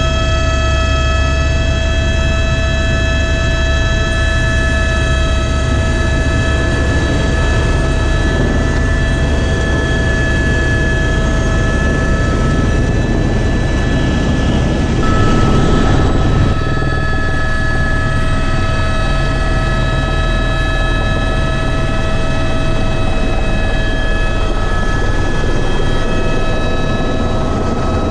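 Helicopter running steadily in flight: several constant whining tones over a heavy low rotor and engine drone, a little louder for a moment about fifteen seconds in.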